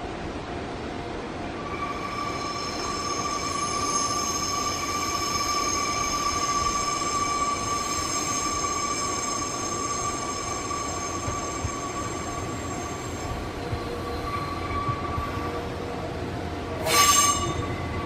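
Nankai 30000 series electric express train approaching slowly on curved track, its wheels squealing in a steady high multi-toned whine over the running rumble for much of the time. Near the end a short, loud screech stands out.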